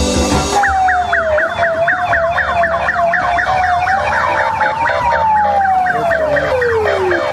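Police siren sounding a rapid yelp of about four sweeps a second, over a slower wailing tone that drops in pitch over the last couple of seconds.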